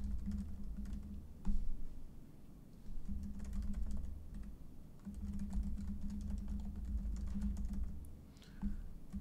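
Typing on a laptop keyboard: a run of light, irregular key clicks with short pauses, over a low steady hum.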